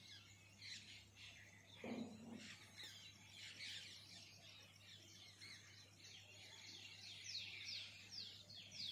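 Faint chorus of small birds chirping, with a quick series of falling notes near the end. A brief lower call sounds about two seconds in.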